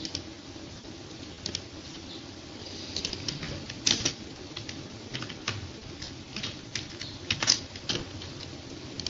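Computer keyboard and mouse clicking: scattered, irregular clicks as a few keys are typed, the loudest about four seconds in and again near seven and a half seconds.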